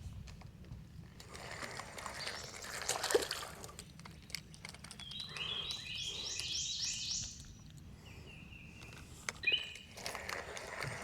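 A songbird sings a quick phrase of about half a dozen repeated high notes about five seconds in, with another short note near the end, over a quiet outdoor background. Earlier there is a brief rustling noise with a sharp knock, the loudest moment.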